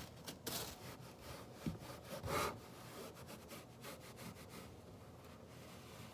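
Hand scrubbing and rubbing on the casing of a Skullcandy portable speaker as it is cleaned, a run of short scratchy strokes, the strongest about two seconds in.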